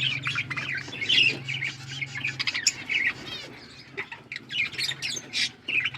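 A flock of small Australian parrots chirping and squawking together in a dense, overlapping chatter of short, high calls. A steady low hum runs underneath, drops out about halfway through and returns near the end.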